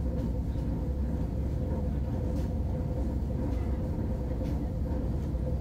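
Vande Bharat Express electric train running, heard from inside the AC chair car: a steady low rumble with a constant hum and a few faint clicks.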